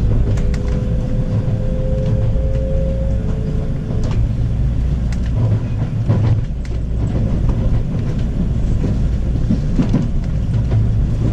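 Electric commuter train running at speed, heard from inside the carriage: a steady low rumble of wheels on rails with scattered clicks. A faint two-tone whine rises slightly in the first few seconds and fades out about four seconds in.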